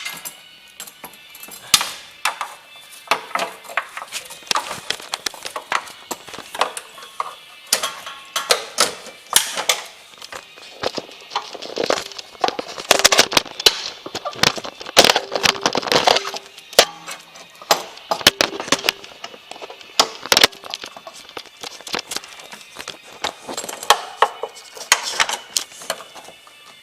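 Irregular metallic clicking, knocking and rattling as a steel parking brake cable is worked into its routing clips and brackets under a 2005 Mustang GT. The clatter comes in quick clusters and is busiest about halfway through.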